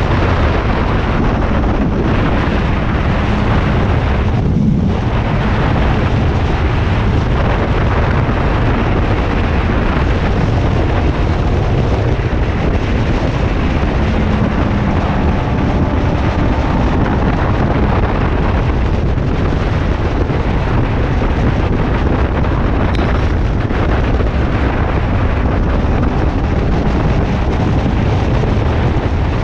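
Wind rushing hard over the microphone of a motorcycle riding at highway speed: a steady, loud rumble, with the bike's engine faintly audible underneath.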